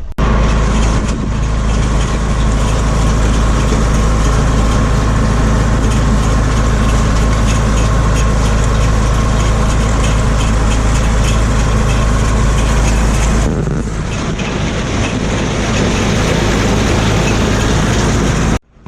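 Ford 7700 tractor's six-cylinder diesel running steadily under load, pulling a New Holland haybine mower-conditioner through alfalfa, with a steady whine from the machine over a heavy low rumble. The low rumble drops off about three-quarters of the way through, and the sound cuts off suddenly near the end.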